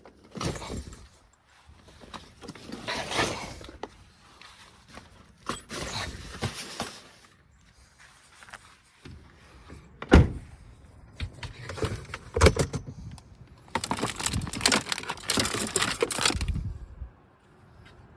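Handling noises: irregular rustling and clatter, with a few sharp knocks, as gear and food are packed.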